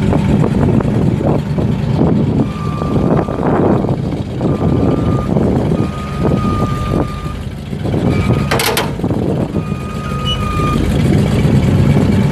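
Chevrolet C70 bucket truck's eight-cylinder gas engine running steadily while the hydraulic boom is worked, with irregular knocks. A high-pitched tone sounds several times in short stretches of about half a second to a second, and a short hiss comes about eight and a half seconds in.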